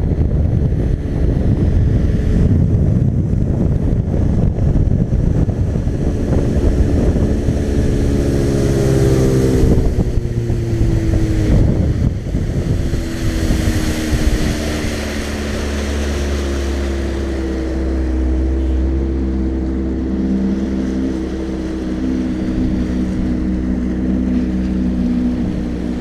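Small boat's outboard motor running at speed with wind buffeting the microphone. About halfway through it is throttled back: its pitch falls over a few seconds and it settles into a steady, lower idle.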